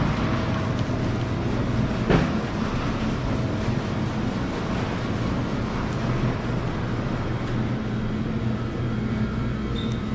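Steady low mechanical hum and rumble of an indoor hall, with an even hiss over it, and a single sharp knock about two seconds in.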